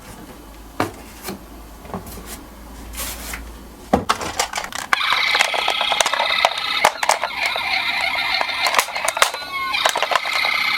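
Clicks and knocks of toy minicars being handled, then about five seconds in a toy ambulance's electronic siren starts sounding, loud and high-pitched, with more clicks from the toys over it.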